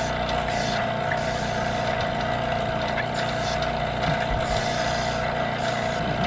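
Electric AC vacuum pump running steadily: a constant motor hum with a steady mid-pitched whine over it.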